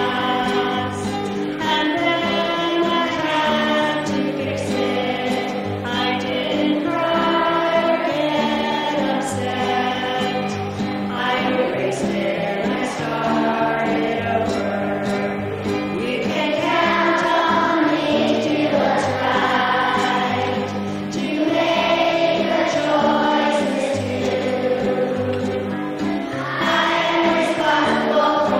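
A group of schoolchildren singing a song together in unison, over an instrumental accompaniment with a steady bass line.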